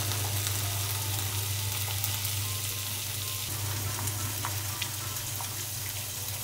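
Eggplant and bacon frying in a pan: a steady sizzle with scattered small crackles, over a low steady hum.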